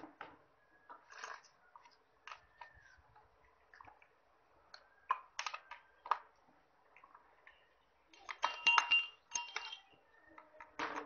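Scattered light metal clinks and rattles from a chainsaw's chain, bar and a hand tool as the chain is fitted onto the bar and tensioned. About eight seconds in comes a quick run of louder, ringing clinks.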